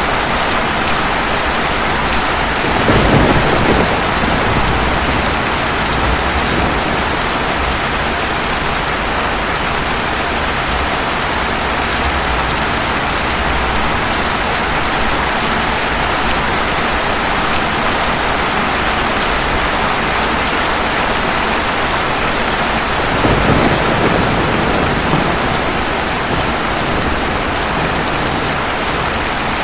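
Steady heavy rain falling on pavement, with two low rumbles of thunder: one about three seconds in, the other about twenty-three seconds in.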